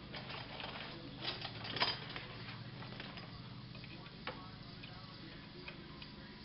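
Scattered metallic clicks and clinks of a hand wrench working a winch mounting bolt, a cluster of louder ones about two seconds in, over a steady low hum.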